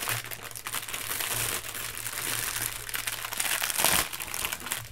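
Clear plastic packaging crinkling as it is handled, a dense run of fine crackles, loudest a little before four seconds in.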